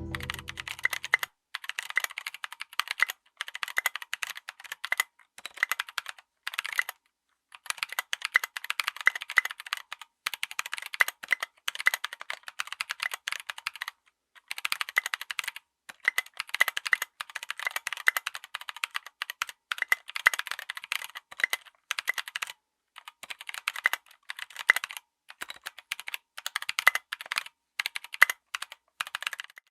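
Fast typing on a mechanical keyboard fitted with stock NovelKeys Kailh Blueberry tactile switches: dense runs of sharp key clicks and bottom-outs, with brief pauses between bursts.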